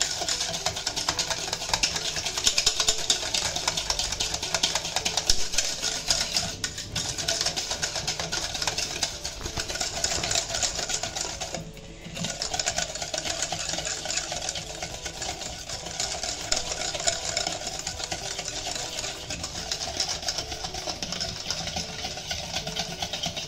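Wire hand whisk beating cake batter in a stainless steel bowl: a rapid, steady clatter of the wires against the metal bowl, with a brief pause about halfway through.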